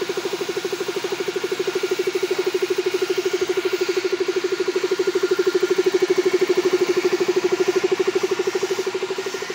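Air compressor running with a steady, fast-pulsing hum, supplying a gravity-feed paint spray gun that hisses as it sprays.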